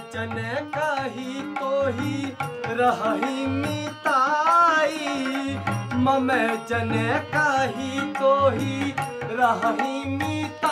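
A male voice sings a Ramlila dialogue verse in a wavering, ornamented melody, over steady held tones and regular tabla strokes.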